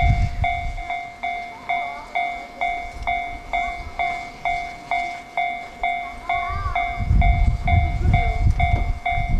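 Railway level-crossing warning bell ringing steadily at about two strokes a second. About seven seconds in, the low rumble of an approaching train joins it.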